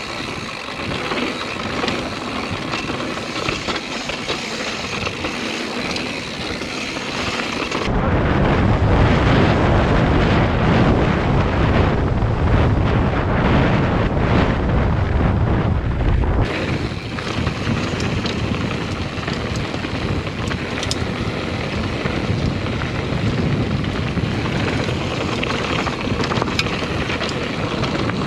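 Wind buffeting a GoPro's microphone on a mountain bike ripping down a trail. About 8 s in, the low rumble of the wind gets much heavier for about eight seconds, then drops back abruptly.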